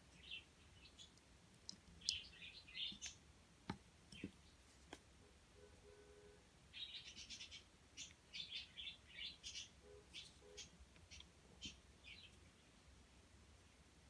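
Faint crunching and clicking of pliers crushing small rock-like pieces, in quick irregular clusters with a few sharper single clicks.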